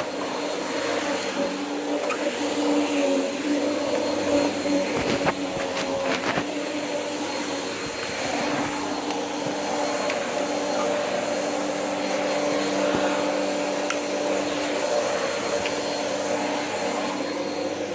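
Corded vacuum cleaner running steadily, a motor hum over a rush of air, with a few short knocks about five to six seconds in.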